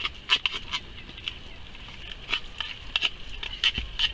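Metal tin of cat food being knocked and tapped against a bait bucket to shake the meat out: irregular sharp taps, with a heavier thump near the end.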